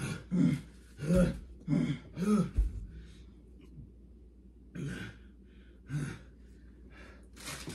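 A person's strained grunts and gasps in short bursts, about two a second at first, then two more a few seconds later, as if struggling for breath in a chokehold.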